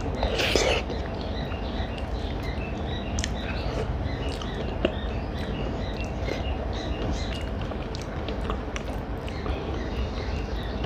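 Eating sounds, chewing and mouth clicks, with one brief louder burst of noise about half a second in, over small birds chirping steadily in the background and a low steady hum.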